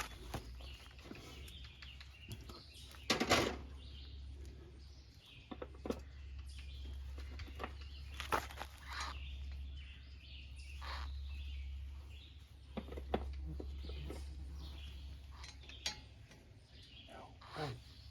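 Scattered metal clinks and knocks of sockets and hand tools being handled, with the loudest cluster about three seconds in, over a steady low hum.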